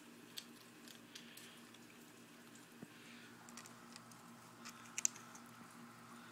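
Faint scattered clicks and taps from a fox squirrel moving about on a wooden window sill, with a pair of sharper clicks about five seconds in, over a faint steady hum.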